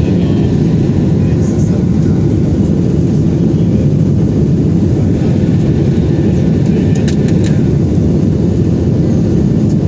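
Steady cabin noise of a Boeing 737-800 in flight: a loud, even low rumble of jet engines and airflow, with a few faint clicks about seven seconds in.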